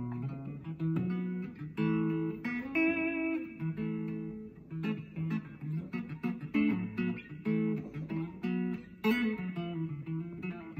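Stratocaster-style electric guitar playing an instrumental passage of plucked single notes and chords, without vocals.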